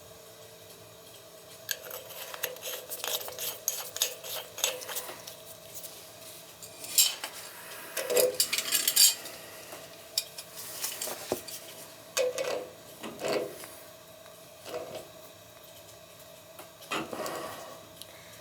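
Small metal parts and tools clinking and rattling as they are handled, in several separate bursts of clatter, over a faint steady hum.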